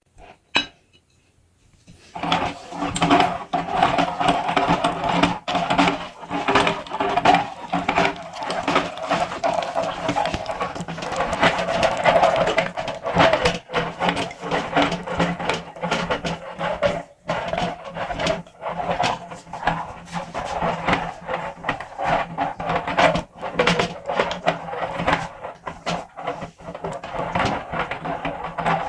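Meat grinder motor starting up about two seconds in and running steadily, with dense clicking and crackling as it grinds.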